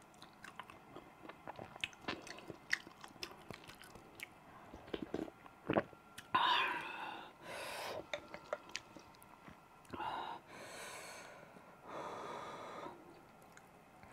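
Close-miked chewing of tender beef and rice: wet mouth clicks and smacks. In the second half there are several longer breathy, hissing sounds lasting about half a second to a second each.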